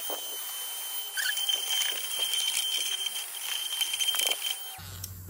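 Pink USB mini vacuum's small motor running with a steady high whine, its brush attachment scratching around the metal of the sewing machine's bobbin area. It gets louder about a second in and the whine cuts off near the end. The brush is gathering lint but the suction is too weak to draw it in.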